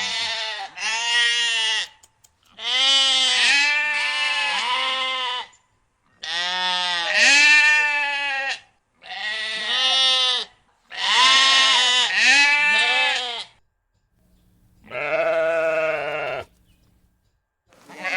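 Sheep bleating: about seven long, wavering bleats, one after another with short pauses between them, the last one lower in pitch.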